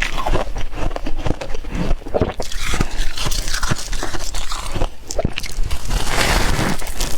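Freezer frost being bitten and chewed, a dense irregular run of crisp crunches and crackles.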